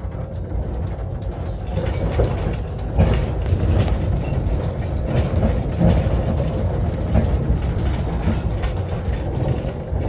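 Inside a moving city bus: steady low engine and road rumble, with frequent knocks and rattles from the cabin.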